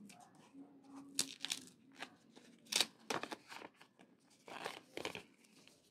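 Paper and cardboard tablet packaging rustling and scraping as the paper sleeve is handled and lifted from the box tray: a string of short, crisp scrapes, the loudest about three seconds in.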